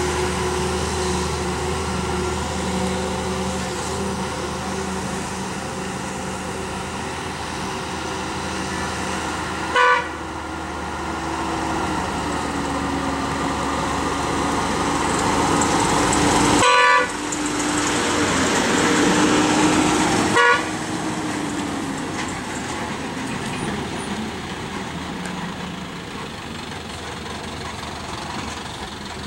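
Heavy diesel lorry engines running steadily, the engine note dropping and later rising and falling again as the trucks change speed. A horn sounds three times: a short toot about a third of the way in, a longer blast a little past halfway, and another short toot a few seconds after that.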